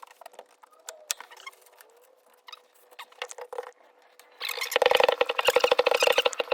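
Light clicks and taps as the wheel is fitted back onto the bike, then from about four and a half seconds in a loud run of fast, even strokes as a bike pump inflates the tyre, sped up.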